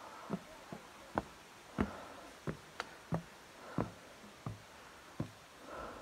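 Footsteps on the treads of an outdoor staircase: about ten knocking steps at a walking pace.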